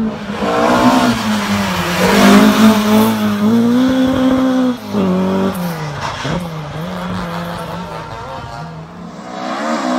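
Ford Escort Mk1/Mk2 rally car's four-cylinder engine revving hard on a stage, its pitch dropping and climbing again with each gear change or lift, then fading near the end as the car pulls away.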